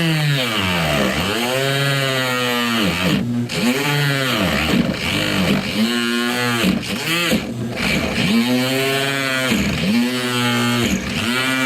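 Reciprocating saw cutting away part of a car bumper. The motor keeps speeding up and slowing down, roughly once a second, as the trigger is eased on and off.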